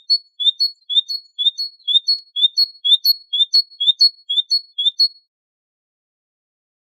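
Great tit singing its two-note "teacher-teacher" song, a short rising note followed by a higher level note, repeated about two phrases a second for about five seconds before it stops.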